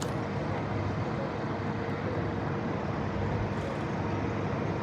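Steady engine drone: an even, unbroken rumbling noise with a faint steady hum running through it, starting abruptly.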